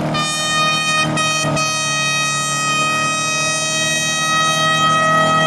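An air horn blown in one long, unbroken blast, over the low steady hum of engines idling.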